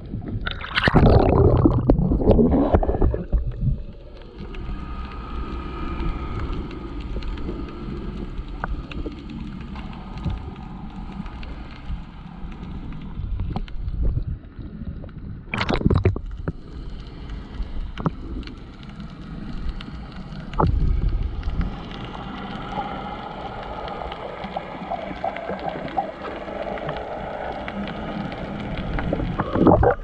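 Water splashing around an action camera at the sea surface for the first few seconds, then the muffled low wash and gurgle of seawater heard with the camera submerged, broken by a few sharp clicks and knocks.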